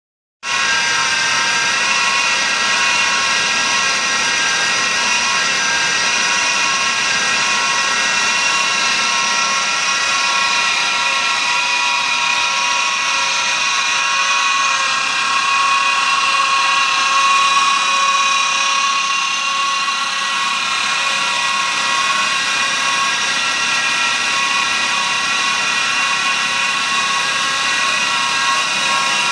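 Belt drive unit in a drilled aluminium casing spinning at a steady speed under static test: a steady, high-pitched mechanical whine made up of many tones, starting abruptly about half a second in.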